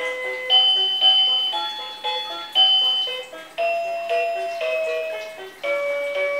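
Toy learning tablet playing a simple electronic melody through its small speaker, a new note about every half second, thin and tinny with no bass.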